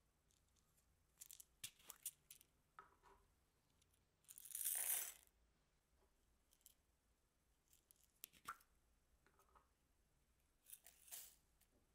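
Plastic topping containers handled and opened: scattered faint rustles and clicks, with a longer, louder rustle about four to five seconds in.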